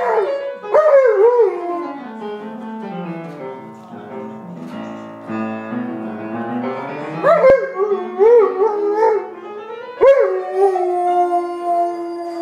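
An Alaskan Malamute howling along to piano music: wavering, rising-and-falling howls at the start, a stretch of piano notes stepping down in the middle, then more howls from about seven seconds in, ending on a long held note.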